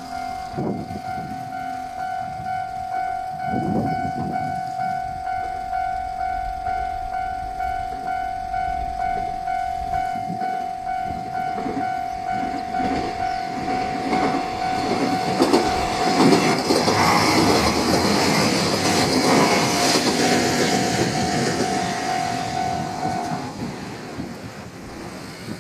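JR Shikoku 1200-series three-car diesel railcar passing a level crossing at speed. The crossing's alarm rings steadily while the wheels clack rhythmically over the rail joints, and the rail and engine noise builds to its loudest about two-thirds of the way through. The alarm stops shortly before the end.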